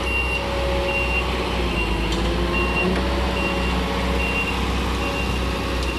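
Short high electronic beeps repeating evenly about every 0.8 s, like a reversing or warning alarm, over a steady low machine hum.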